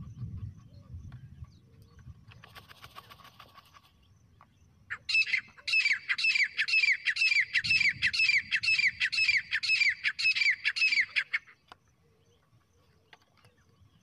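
Teetar (francolin partridge) calling: a run of about fifteen sharp, repeated notes, two to three a second, for some six seconds starting about five seconds in, used as a lure call to draw wild partridges. A faint short rattle comes before it.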